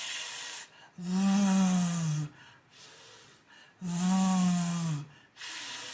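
A woman demonstrating the English F and V sounds in alternation: a breathy "fff" hiss with no voice, then a held, buzzing "vvv" lasting about a second, voiced through the lip against the top teeth. The pair repeats, giving three hisses and two buzzing V's.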